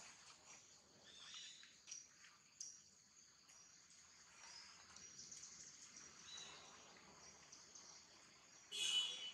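Faint, steady, high-pitched buzzing of insects, with a few soft ticks. Near the end comes one short, louder high call.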